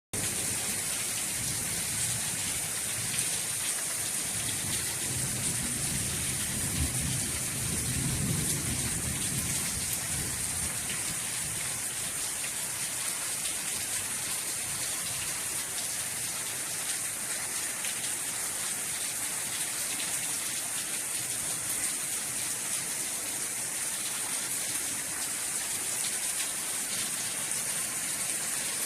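Steady rain falling and pattering on a patio, with a low rumble for several seconds in the first third.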